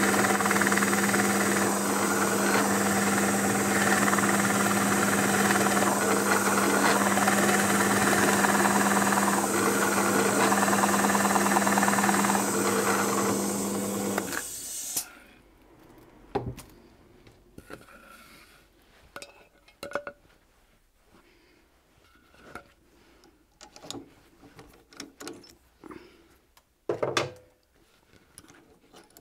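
Electric drill boring into wood with a Forstner bit, running at a steady pitch, then stopping abruptly about halfway through. After that come scattered light knocks and clicks.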